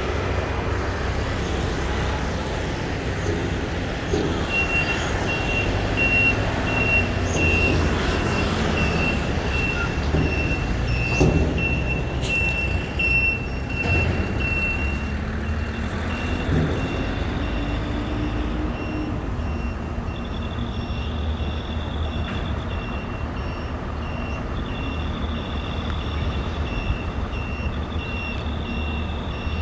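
Rapid, repeating high electronic warning beeps over a steady low rumble of a large vehicle engine; the beeping changes to an alternating two-pitch pattern about halfway through.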